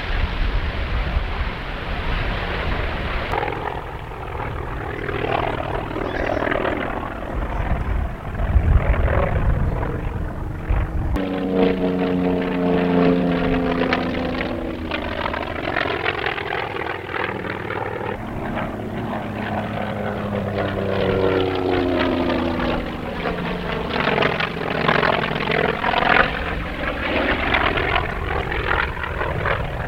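Propeller airplane engine in flight at an air show, with a rough rumble at first. From about a third of the way in, the engine's pitch sweeps up and down as the plane passes and turns.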